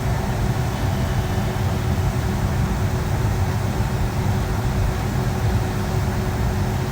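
Steady rumble and hum of a Boeing 757-200 cabin before takeoff, from the jet engines at low power and the cabin air system, with a constant low tone underneath and no change in level.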